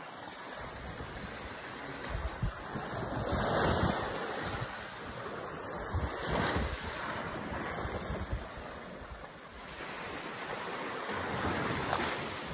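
Small waves washing up onto a sandy beach, the wash swelling louder a few times as waves come in, with wind gusting on the microphone.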